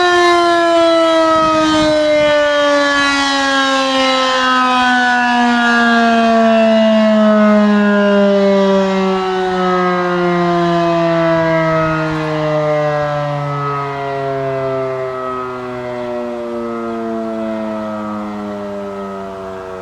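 W.S. Darley Model 5 electromechanical warning siren winding down: its tone falls steadily in pitch and slowly grows quieter, with a lower second tone coming in partway through.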